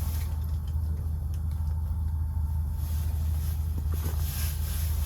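A steady, unchanging low rumble, as of a motor running.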